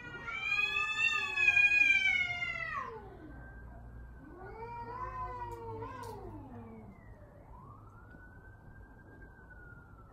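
Cats yowling in a fight. Long, wavering caterwauls rise and fall in pitch, the loudest in the first three seconds and another around the middle, then a fainter drawn-out wail toward the end.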